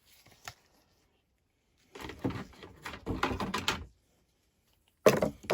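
Hard plastic toy playset pieces being handled, with rattling and knocking about two seconds in and a sharp, louder clack near the end.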